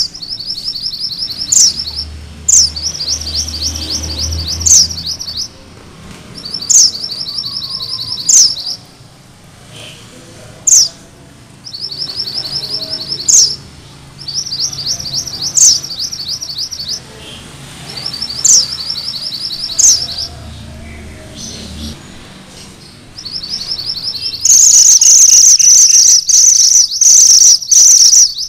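Minivet (mantenan gunung merah) singing its rolling 'ngerol' song. Each phrase is a sharp high note sweeping down, then a fast trill of repeated chirps, repeated every two to three seconds. Near the end the trills become much louder and run almost without a break.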